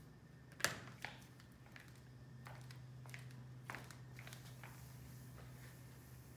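A sharp click, then light footsteps tapping across a hard tiled floor, over a faint steady low hum.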